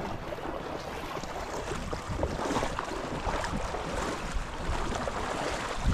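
Shallow river water rushing and splashing around someone wading through it, with wind noise on the microphone.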